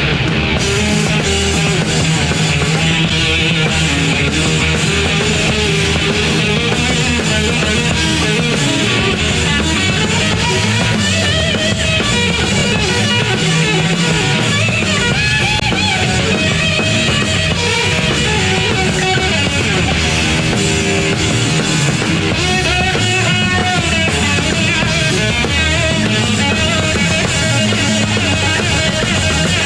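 Loud rock music with distorted electric guitar and a steady bass, playing throughout.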